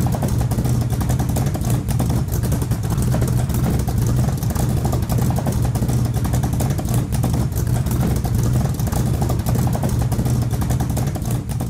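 Vehicle engine idling steadily, heard at the exhaust, with a rapid, even pulsing exhaust note.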